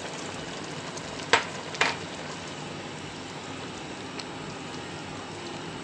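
Stew of meat, peas and artichokes simmering in a steel pot, a steady bubbling hiss, with two sharp knocks about a second and a half in.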